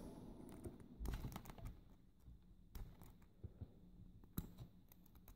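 Faint, scattered clicks and light taps of small metal padlock parts and tools being handled during disassembly, with near quiet between them.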